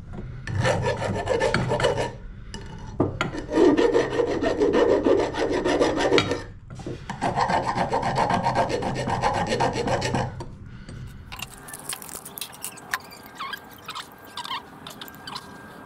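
A hand file scraping back and forth across 20 mm steel bar stock in three long spells of filing. After that come a few light clicks of small metal parts being handled.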